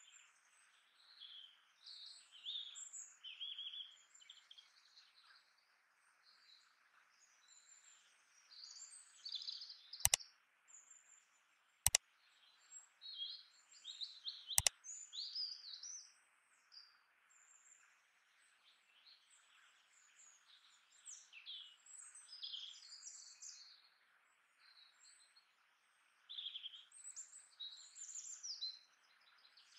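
Small birds chirping and twittering continuously over a faint steady hiss. Three sharp clicks come near the middle, about two seconds apart.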